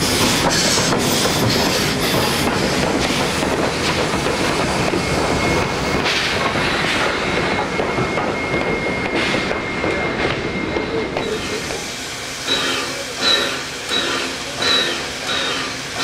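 NSWGR 32 class steam locomotive 3237 and its tender rolling slowly past, wheels knocking over rail joints amid hissing steam, with a faint thin squeal for a few seconds in the middle. Near the end the standing locomotive gives off rhythmic hissing beats, about one every 0.7 seconds.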